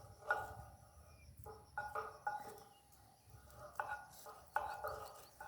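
Light metallic clinks and scrapes on a hollow steel post, about eight irregularly spaced strikes, each ringing briefly.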